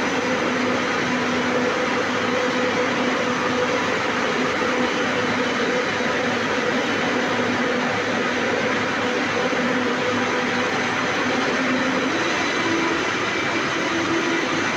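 Steel rolling mill running: the cooling bed and roller table give a loud, steady mechanical din. A hum runs through it and steps up in pitch about twelve seconds in.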